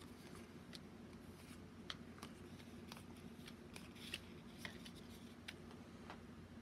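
Faint, scattered light clicks and taps of cardboard baseball cards being handled and laid down on a wooden table, over a low steady hum.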